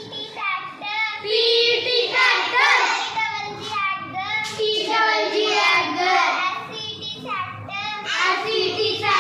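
Young children singing together in high voices.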